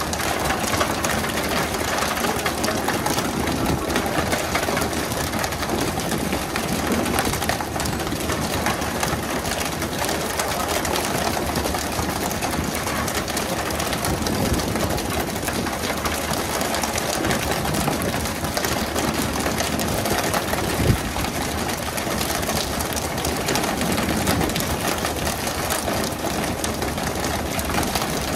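A fishing boat's engine running steadily under a constant hiss of water spray and splashing at the stern, with one sharp knock about 21 seconds in.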